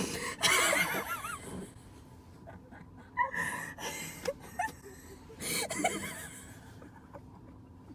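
Two women laughing helplessly in bursts, with gasping breaths between them; the laughter dies down toward the end.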